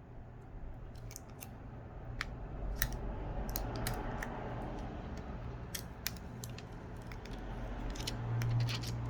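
Irregular sharp clicks and taps of a smartphone and its new screen being handled and pressed together by hand, with a steady low hum underneath.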